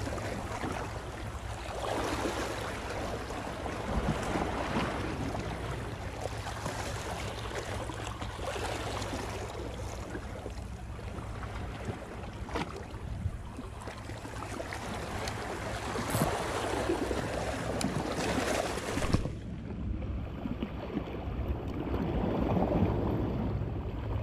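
Wind buffeting the microphone in gusts over water noise, swelling every few seconds, with a steady low drone underneath.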